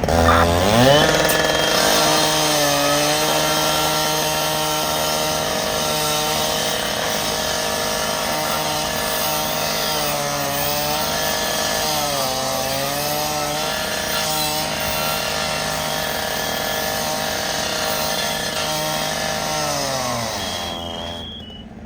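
Gas-powered two-stroke firefighting saw revved up and held at high speed, its pitch sagging briefly several times as it bogs into the cut, then shut off near the end.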